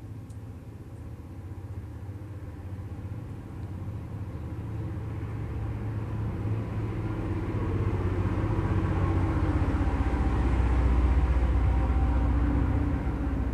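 Low steady rumble with a hum, growing gradually louder over about ten seconds and easing off near the end.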